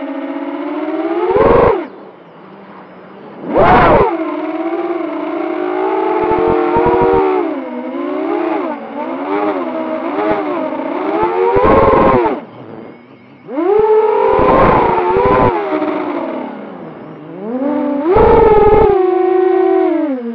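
Armattan Chameleon 6-inch quadcopter's 2207 1650kv brushless motors and propellers whining on 6S power, the pitch rising and falling with the throttle. About five loud surges where the whine climbs steeply under hard throttle punches.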